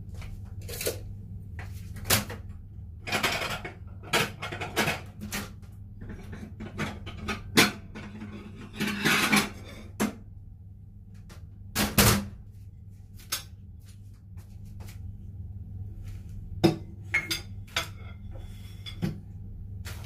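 Kitchen clatter: plates and cutlery clinking and knocking in scattered short clicks and rattles while a table is set, over a steady low hum.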